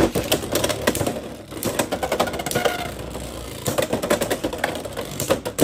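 Two Beyblade X spinning tops battling in a plastic stadium just after launch: a fast, irregular clatter of plastic hits and rattles over a steady whir.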